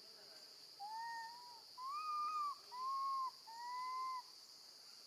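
Baby monkey giving four long, clear calls in quick succession, each under a second and arching up and down in pitch, the second pitched highest: a separation call for its mother. A steady high insect drone runs underneath.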